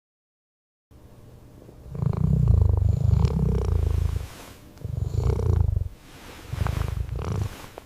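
A cat purring, starting about a second in and swelling in three long rounds, one with each breath.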